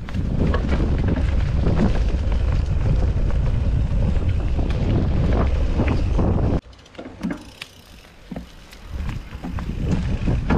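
Wind rushing over a small camera microphone, mixed with rattle and tyre noise from a mountain bike being ridden on dirt and sand. About two thirds of the way in the noise cuts off suddenly, leaving a few clicks and knocks, then builds again near the end.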